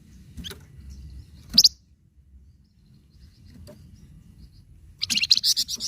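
Flamboyan songbird calling: a few sharp high chirps, one loud one about a second and a half in, then a fast run of loud chirps near the end.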